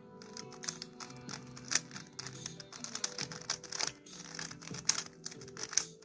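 Quick, irregular plastic clicking and clacking of a 3x3 speedcube's layers being turned rapidly by hand, over background music.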